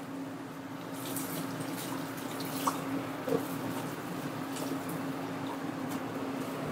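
Batter cooking in a frying pan on a gas hob, a faint sizzle over a steady low hum, with a couple of light clicks.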